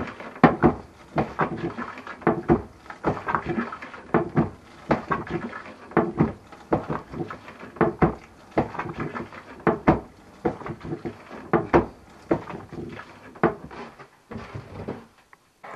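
Diaphragm bilge pump being worked by hand, about two strokes a second, drawing water up out of the bilge; the strokes stop near the end.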